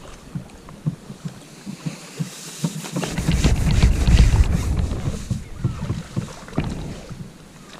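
Wind gusting across the microphone, a low rumble that swells about three seconds in and dies away around six seconds, with scattered light clicks and knocks throughout.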